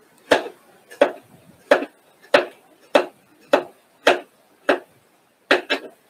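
Kitchen knife slicing carrots, knocking down in an even rhythm about every 0.6 seconds, with a quick double stroke near the end.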